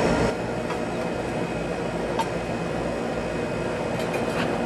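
Steady fan-like background noise with a few light clicks and taps from tools being handled and set down.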